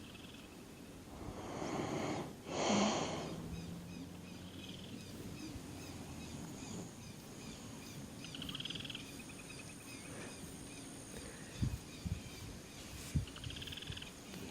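A man snoring: two loud snores in the first three seconds. After that, birds chirp against an outdoor background, with a few short knocks near the end.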